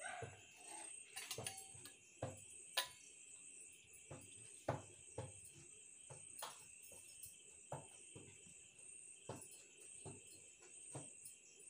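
Faint steady high-pitched chirring of crickets, with light clicks and knocks scattered about once a second.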